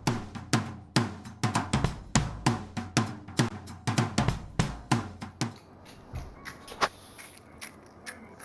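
A drum beat: punchy kick and snare hits about two a second, thinning after about five and a half seconds to scattered lighter taps.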